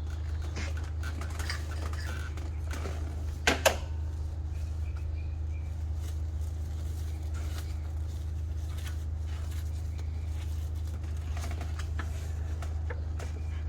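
A steady low hum runs under light clicks and rustles of hands working on an engine, with two sharp clicks in quick succession about three and a half seconds in.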